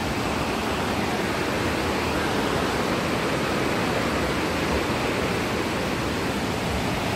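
Steady rushing noise of a large waterfall, even and unchanging throughout.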